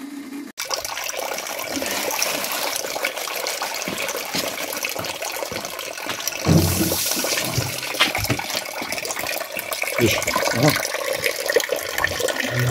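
An electric fruit crusher's motor hum cuts off about half a second in. Then comes a steady splashing stream of apple juice running from a fruit press into a plastic bucket, with scattered knocks and handling noise.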